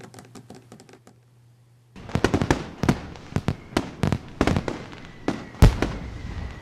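Fireworks going off: after a few faint ticks, a fast, uneven string of sharp bangs and crackles starts about two seconds in, with the loudest bang near the end.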